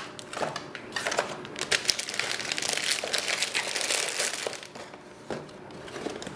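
Plastic packaging crinkling and rustling in bursts as a just-unboxed computer part is packed back into its box, easing off after about four and a half seconds, followed by a single soft knock.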